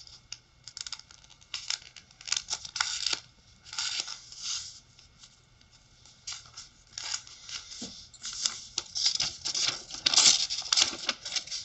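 A sheet of printed paper rustling and crinkling as it is folded and creased by hand, in irregular short scrapes. It gets busier and loudest about ten seconds in, as the sheet is picked up and handled.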